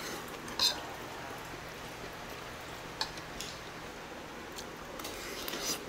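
Eating sounds: a few short clicks and scrapes of a metal spoon and fork against the bowls, the loudest about half a second in, another about three seconds in and a small cluster near the end, over a faint steady room hum.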